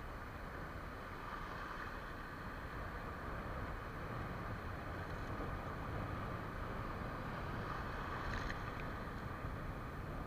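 Steady wash of sea surf with wind on the microphone, and a faint short click about eight seconds in.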